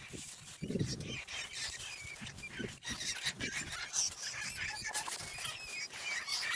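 Caught field rats squealing in wire-mesh cage traps, amid the clink and rattle of the wire traps being handled over a larger holding cage.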